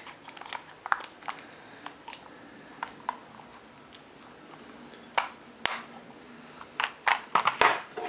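Small clicks, taps and plastic crinkles of hands handling a plastic pack of AA batteries and a Maratac AA flashlight on a wooden table. The sounds are scattered, with louder bunches of clicks about five seconds in and again about seven seconds in.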